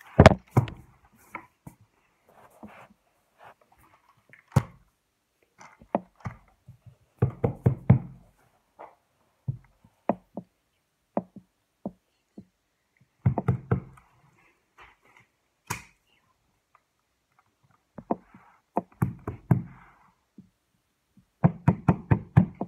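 Dull knocking in quick runs of several knocks every few seconds, with single lighter taps between the runs.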